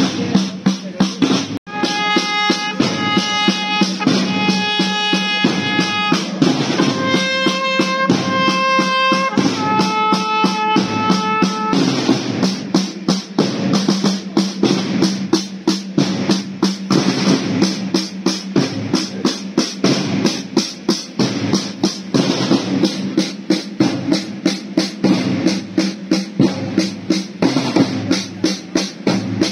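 Procession drums of a Roman-soldier band beating a fast, steady marching cadence. For roughly the first ten seconds a wind instrument sounds a few long held notes over the drumming.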